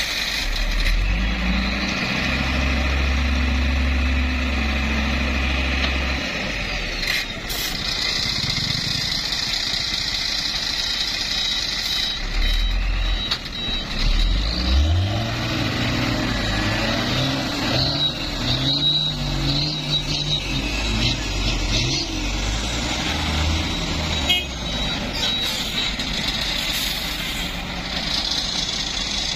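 Heavy diesel truck engines running, with one revving up and down several times about halfway through.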